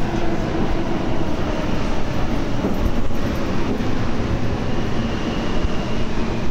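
Subway train rumbling and clattering steadily through the station.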